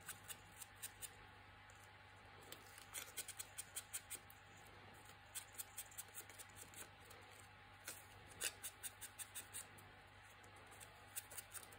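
Ink blending tool dabbing and scuffing Distress ink onto the edges of a cardstock frame, in several short runs of quick strokes, about four or five a second, with pauses between.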